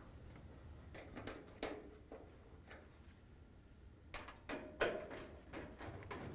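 Faint metallic clicks and taps of a steel top-retaining clip being fitted to a dryer cabinet and a screwdriver working its screw, scattered and irregular, busier in the second half with one sharper click near five seconds in.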